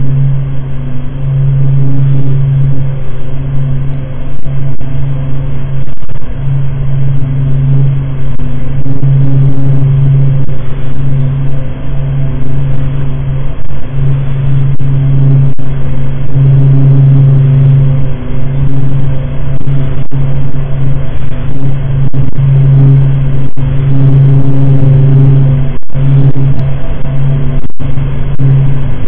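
Sonified space radio emissions presented as the sound of Neptune's magnetic field: a loud, steady, low rumbling drone with a strong hum and fainter overtones above it, broken by a few brief dropouts in the second half.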